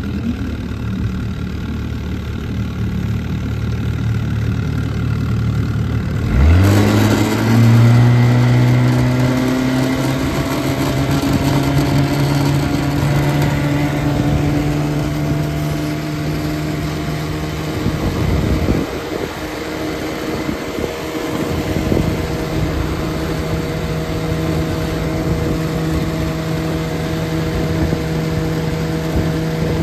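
Evinrude 9.5 hp two-stroke twin outboard motor idling in gear, then throttled up about six seconds in. Its pitch jumps and keeps climbing slowly as the boat gets under way. After a brief unsteady dip about eighteen seconds in, it runs at a steady high speed.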